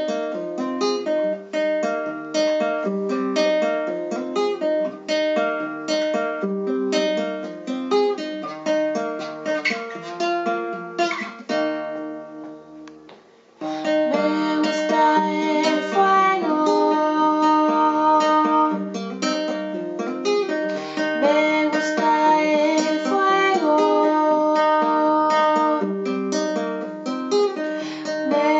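Indie folk song played on plucked acoustic guitar. About twelve seconds in the playing thins out and fades almost to nothing, then comes back in fully a second and a half later.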